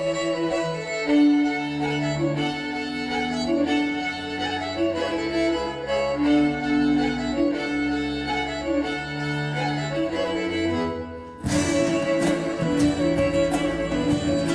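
Live instrumental band music: bowed violin and cello play a slow melody over sustained low notes. About eleven seconds in, after a brief drop, the full band comes in with strummed guitar and a busy rhythmic beat.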